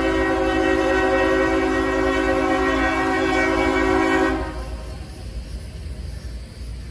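Lead diesel locomotive's multi-note air horn sounding one long, steady blast that cuts off about four seconds in, followed by the low rumble of the oncoming freight train.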